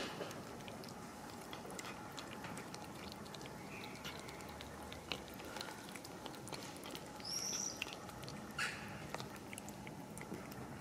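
Cats eating wet cat food from a plastic tub, with many small wet chewing and lapping clicks. Two short high chirps stand out, one about seven seconds in and one near nine seconds.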